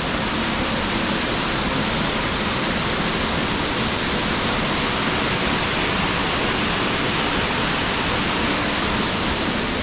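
Waterfall rushing and splashing as a steady, loud roar of falling water, heard close up.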